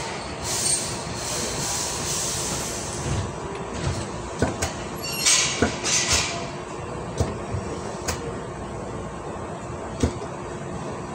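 Hankyu 8000 series electric train running, heard from inside the front car: a steady running noise with irregular sharp clicks and knocks from the wheels and rails, and short bursts of hiss about five to six seconds in.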